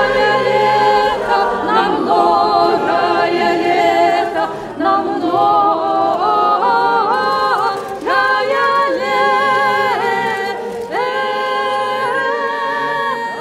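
Orthodox church choir singing a cappella, several voices in harmony holding long notes with vibrato, with new phrases beginning about five, eight and eleven seconds in.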